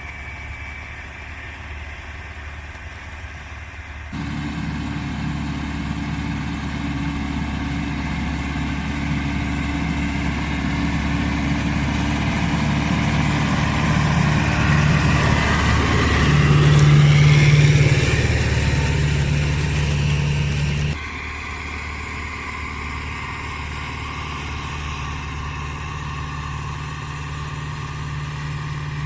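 Case CX80 tractor's diesel engine running steadily under load while pulling a four-furrow plough through heavy ground. It gets suddenly louder about four seconds in, swells louder still past the middle, then drops abruptly about three-quarters of the way through.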